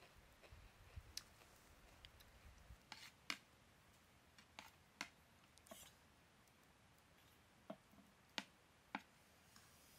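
Faint scattered clicks and light taps, about ten of them at uneven intervals, over a low background rumble that stops about three seconds in.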